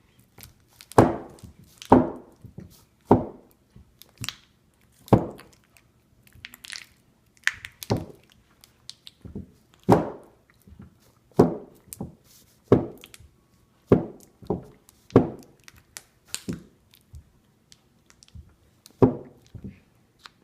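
Honeycomb being mashed in a bowl with repeated strikes, roughly one a second, each a crunching, squishing hit. The wax cells are being crushed so the honey drains out.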